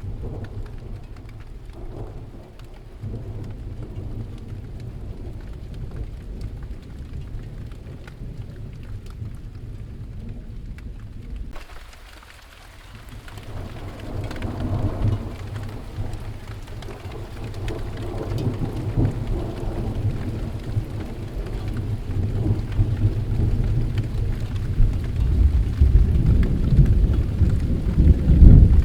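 Thunderstorm: steady rain falling, with rolling thunder. About twelve seconds in the sound briefly drops. A long, deep rumble of thunder then builds and is loudest near the end.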